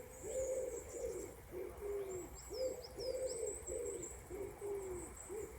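A pigeon cooing over and over in a low, rhythmic series of short notes, about two a second. A small bird gives a few quick high chirps about halfway through.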